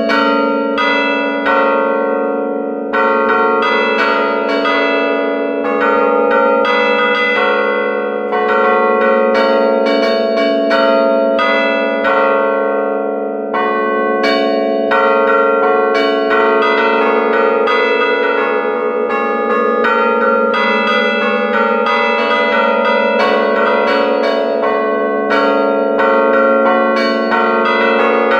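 Church bells played from a keyboard, heard up close inside the bell chamber: clappers strike the hanging bells in quick rhythmic succession, several strikes a second, over a continuous hum of overlapping ringing.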